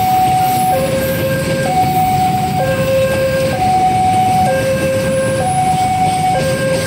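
Railway level-crossing warning bell sounding a steady two-tone alarm, alternating high and low notes about once a second, signalling that a train is approaching and the barriers are closing. A low rumble runs underneath.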